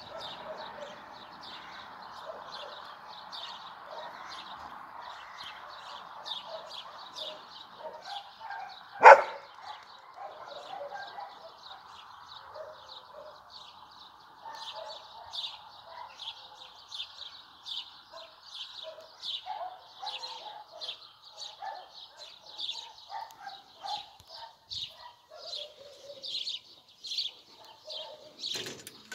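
A dog barks once, loud and short, about nine seconds in. Birds chirp in quick, repeated high notes throughout.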